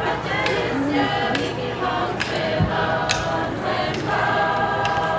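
Pacific Islander group of men, women and children singing together in held, harmonised notes, with sharp short beats struck at intervals.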